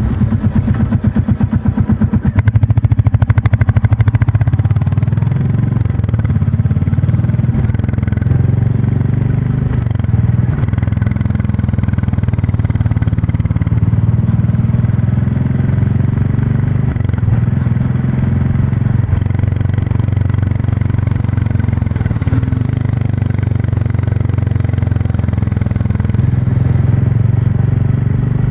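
Royal Enfield Classic 350's single-cylinder engine and exhaust running under way. For the first few seconds the separate exhaust beats are slightly louder and plainly heard, then it settles into a steady drone while cruising.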